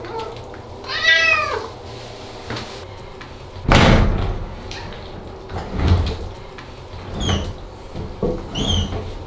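A wet Ragdoll cat meows once, about a second in. A loud thump comes at about four seconds, and then more knocks and short squeaks as the bathroom's folding door is opened near the end.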